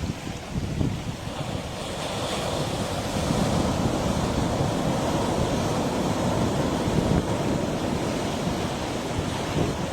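Sea waves breaking and washing on a beach, a continuous surf that swells about two seconds in and holds, with wind buffeting the microphone.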